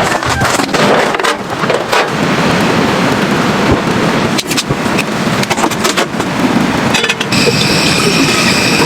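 Strong blizzard wind roaring, with short sharp knocks scattered through it. About seven seconds in, a steady high whine joins it.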